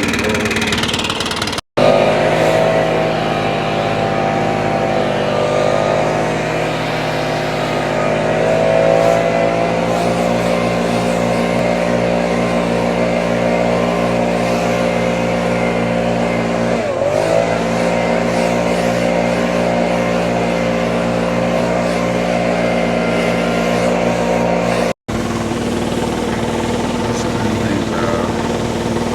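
An engine running steadily, its pitch dipping briefly and coming back up about halfway through. The sound breaks off for an instant twice, at edit cuts.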